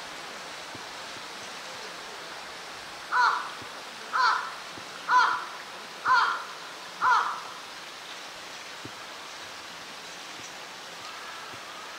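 A crow cawing five times, about a second apart, over a steady rushing background noise.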